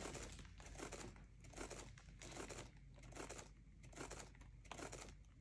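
Faint crinkling, rustling noise pulsing about twice a second as a wet, paint-covered canvas spins on a turntable.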